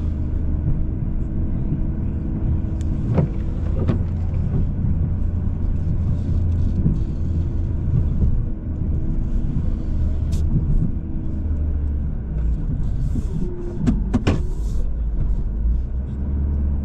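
Vehicle engine running steadily under load while plowing snow off gravel, with a few sharp knocks or scrapes about three, four and fourteen seconds in.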